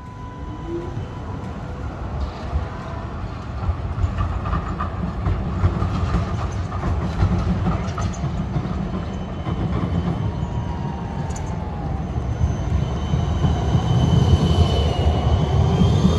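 Melbourne street trams running on their rails, a steady low rumble that grows louder near the end as a tram passes close by. Faint high tones rise and fall over it.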